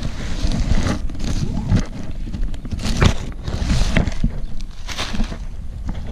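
Wind buffeting the microphone with a steady low rumble, over repeated crisp crackling and rustling of new paraglider wing cloth.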